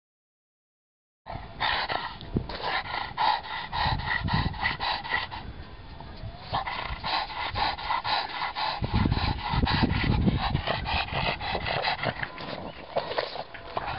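Pugs panting hard and raspingly, out of breath from running up the hill, at about four breaths a second. The panting starts after about a second of silence and pauses briefly around the middle.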